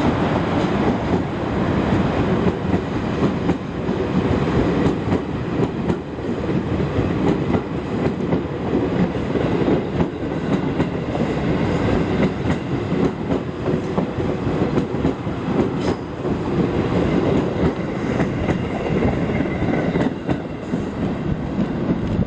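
Train hauled by an EF200 electric locomotive passing close by, its wheels clattering steadily over rail joints in a continuous run of clicks, with a faint whine near the end.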